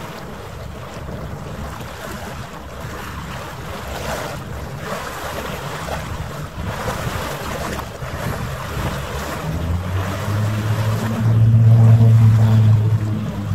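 Wind buffeting the microphone over choppy harbour water, sped up nearly three times. About ten seconds in, a low steady drone swells in and becomes the loudest sound for a few seconds before fading.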